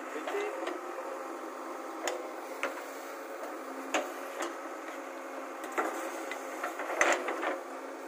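JCB backhoe loader running steadily while its backhoe bucket digs into loose soil, with several sharp knocks, the loudest about seven seconds in.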